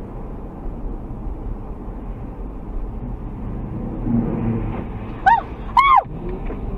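Steady road and engine noise inside a car moving in slow highway traffic. About five seconds in come two short high-pitched yelps, each rising and falling in pitch.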